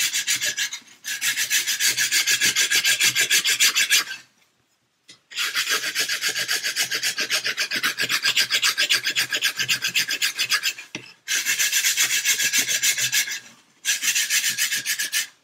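Coarse flat sanding stick rubbed back and forth along the edge of a wooden ship-model false keel, bevelling it in rapid strokes of about five a second. The strokes come in four runs with brief pauses between them.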